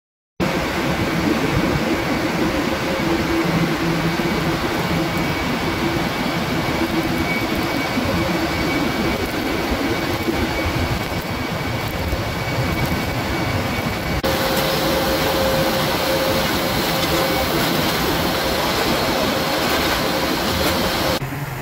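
Loud, steady rush of steam venting from a boiler blowdown, with a steady hum underneath. The sound changes abruptly about 14 seconds in.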